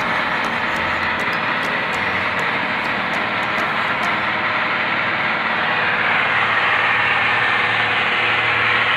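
A small wooden fishing boat underway at sea: its engine running steadily under a loud, even rush of wind and water past the hull.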